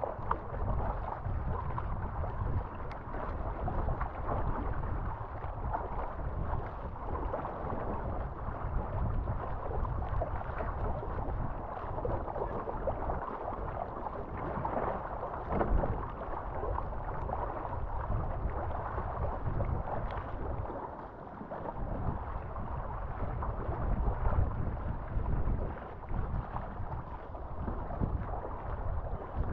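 Water splashing and rushing along a surfski hull as it is paddled through choppy sea, with paddle splashes and wind buffeting the deck-mounted microphone. The noise surges and eases unevenly, with a brief lull about 21 seconds in.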